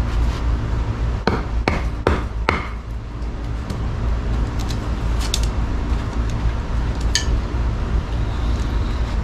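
Knife blade carving curls from a piece of wood: four quick strokes about a second in, then scattered lighter ticks, over a steady low rumble.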